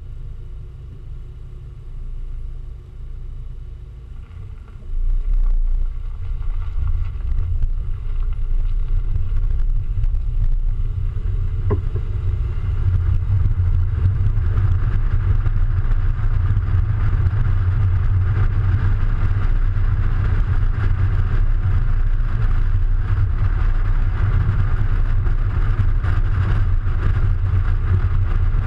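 Audi A3 driving, heard from a camera mounted on the outside of the car beside the front wheel: a steady low rumble of wind and road noise that steps up about five seconds in.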